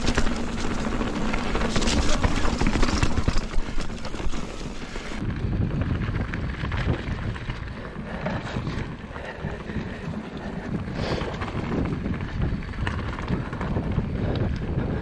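Mountain bike riding over wet roots and mud: tyre noise with repeated knocks and rattles of the bike over bumps, and wind buffeting the microphone. About five seconds in the sound turns duller as the high end drops away.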